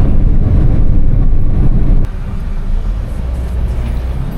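Low rumble and road noise of a moving bus, heard from inside. About halfway through there is a click, and after it the noise is suddenly quieter.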